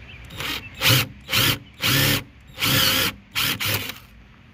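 Bauer cordless drill with a step drill bit, run in six short trigger bursts as it bores out a plastic license-plate mounting insert to widen the hole.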